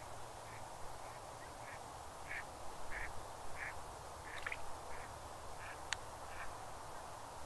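A duck quacking in a series of short calls about every half second, loudest around the middle, with a single sharp click about six seconds in, over a steady background hiss.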